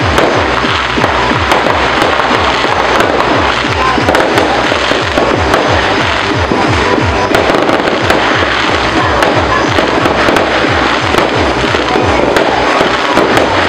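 New Year fireworks crackling and popping continuously, over music with a steady bass beat.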